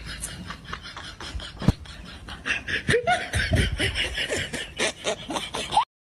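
Laughter with snickering and chuckling, louder from about halfway in, cutting off abruptly near the end.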